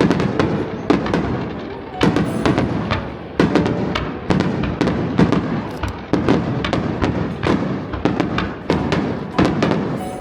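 Aerial fireworks shells bursting in quick succession: a string of sharp booms and crackles, roughly one to two a second, each fading out.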